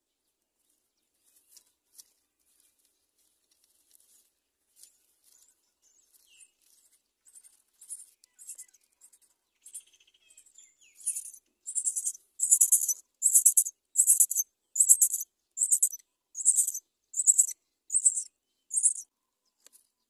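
Myna nestlings begging for food as the parent feeds them at the nest: a rapid series of high-pitched calls, about two a second. The calls start faint and scattered, grow loud from about halfway, then stop just before the end.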